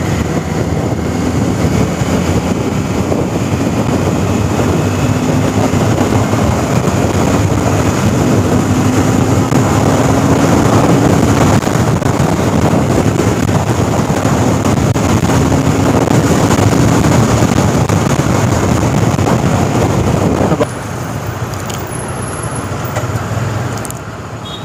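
Honda CBR250R single-cylinder motorcycle under way, its engine note rising through the revs three times and breaking off at each gear change, under heavy wind and road noise on the bike's camera. About twenty seconds in the sound drops as the bike slows and rolls to a stop.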